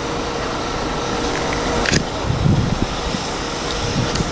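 GWR steam tank locomotive pulling slowly away: a steady hiss and rumble, with a single sharp clank about two seconds in.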